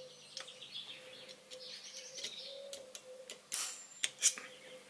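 An automatic centre punch firing into a marked-out steel plate, giving a few sharp metallic snaps near the end. Birds chirp faintly in the background.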